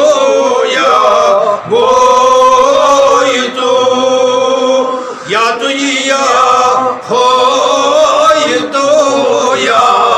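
A man chanting verse in a melodic, sing-song voice, in long held phrases with brief breaths about every second and a half to two seconds.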